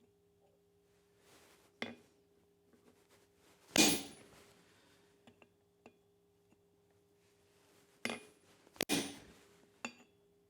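A few separate metal-on-metal clanks of blacksmithing tools on steel at the anvil, each with a brief ring: one about two seconds in, the loudest about four seconds in, a quick pair near nine seconds and a lighter one near the end, over a steady low hum.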